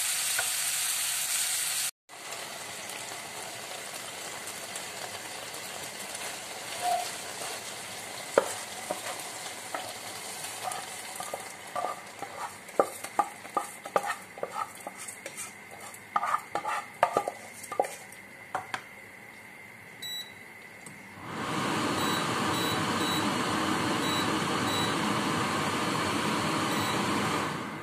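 Chicken sizzling in oil in a frying pan as it is stirred with a wooden spatula. After a cut, a spatula knocks and scrapes many times as cooked rice is scooped out of a rice cooker's inner pot into a frying pan. Loud sizzling starts again about 21 seconds in.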